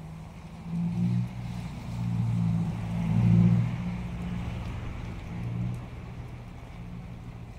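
Small motor scooter's engine passing close by, building to its loudest about three seconds in and then fading as it rides away, over the steady hiss of rain.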